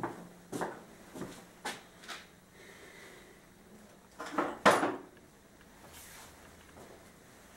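Scattered knocks and clatters of someone moving about a small workshop and handling things, a few light knocks in the first two seconds and a louder, sharper pair about four and a half seconds in.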